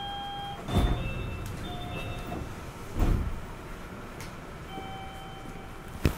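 Sliding doors of a Kobe New Transit 3000-series automated train and the station's platform screen doors working at a stop. Electronic door chime tones sound, with a heavy thud about a second in and another about three seconds in, and a sharp click near the end.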